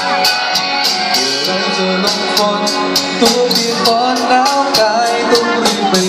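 A man singing live into a handheld microphone over backing music with a steady beat.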